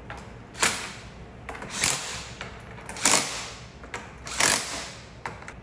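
Cordless impact driver run down the pump manifold bolts in four short trigger bursts, about one every second and a bit, with a brief fifth one near the end: fasteners being tightened to secure the manifold.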